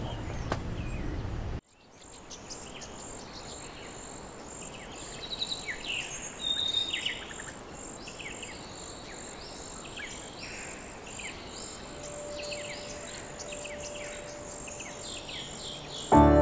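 Park ambience with many small birds chirping in short, quick calls over a steady hiss. It follows a louder noisy stretch that cuts off abruptly about a second and a half in, and music begins right at the end.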